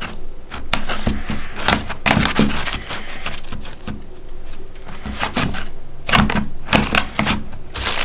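Irregular clicks, taps and rustles of plastic tweezers and a kraft-paper envelope being handled as pom-poms are put into the envelope, over crinkly tissue paper.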